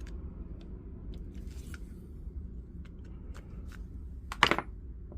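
Light clicks and small scrapes of hand tools working at small parts on a bench, with one louder, short scrape about four and a half seconds in, over a steady low hum.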